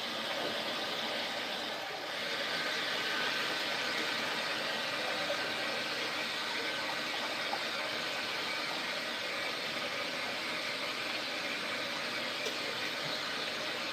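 Kitchen tap running steadily into the sink, an even rushing of water.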